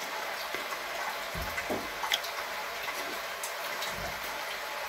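Minced meat cooking in a stainless steel pot on an electric hot plate: a steady sizzling, bubbling hiss with scattered small pops and ticks.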